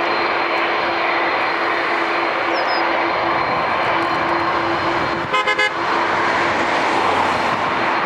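Airbus A330 jet engines running, a steady roar with a held whine. About five seconds in, a brief honk sounds in about three quick pulses.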